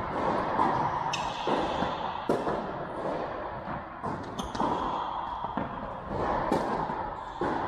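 Tennis rally on an indoor court: sharp racket strikes and ball bounces, irregularly spaced, each echoing briefly in the hall, with a few short high squeaks between them.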